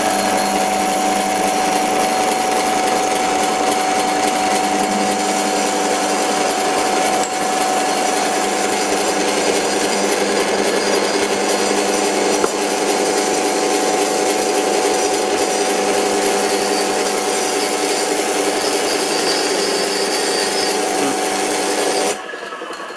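Antique pre-war Karger metal lathe running steadily with a steady whine, while a center drill in the tailstock chuck cuts into the face of a spinning metal bar. The lathe cuts off about 22 seconds in and winds down.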